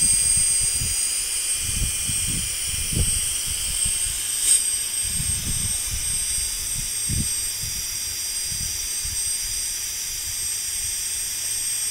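Small electric air pump running steadily as it inflates an inflatable SUP board through the board's valve: a high whine over the hiss of rushing air, with a brief click about four and a half seconds in.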